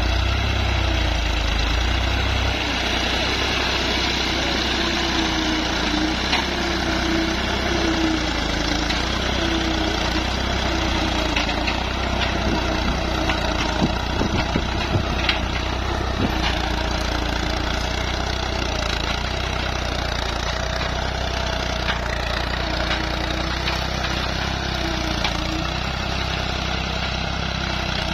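Fiat 480 tractor's three-cylinder diesel engine running steadily as it pulls a tine cultivator through the soil, the low rumble easing a little after the first two seconds, with a few sharp clicks around the middle.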